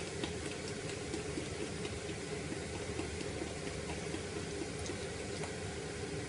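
A pot of liquid boiling on a gas stove: a steady bubbling hiss with small scattered pops.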